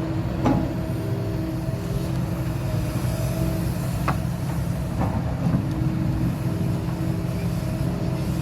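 Kobelco SK300 excavator's diesel engine running steadily, with a few brief knocks.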